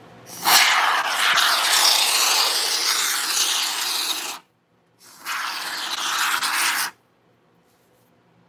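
Aerosol can of Gaps & Cracks expanding spray foam hissing as foam is dispensed through its straw nozzle: one long burst of about four seconds, then a shorter burst of about two seconds, each stopping abruptly.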